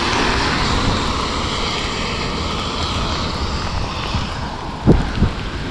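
Steady rushing noise of an e-bike riding through rain on wet pavement: tyres hissing on the wet surface, with a couple of sharp thumps near the end.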